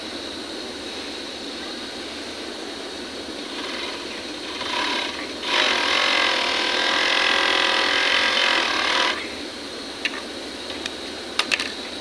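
Industrial overlock sewing machine stitching a test seam along a fabric edge: it starts briefly, then runs steadily for about four seconds and stops abruptly. A few sharp clicks follow near the end.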